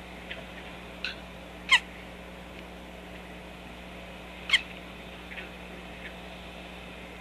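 Chicks making a strange call: two loud, high peeps that slide steeply down in pitch, about three seconds apart, with a few fainter short calls around them. A steady low hum runs underneath.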